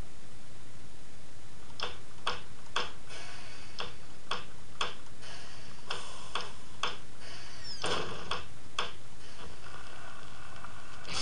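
Sharp ticks, about two a second, over a steady hiss and low hum, with a short falling swish near the end.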